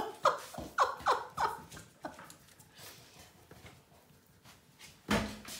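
Small dog whining in short falling cries, about five of them in quick succession in the first two seconds, then fainter whimpers; a single louder, sharp sound comes about five seconds in.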